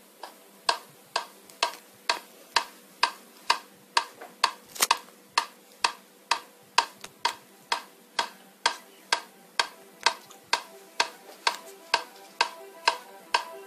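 Steady clock-like ticking, about two even ticks a second, with music starting to come in near the end.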